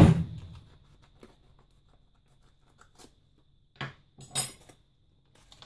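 A sharp knock at the start, then small handling clicks and two short rustles of a plastic bag of shrimp about four seconds in.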